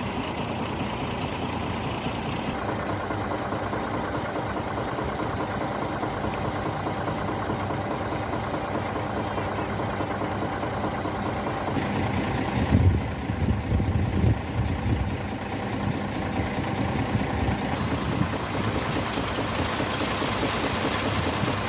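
Heavy construction machinery engine running steadily, with a louder stretch of low rumbling and uneven knocks about halfway through.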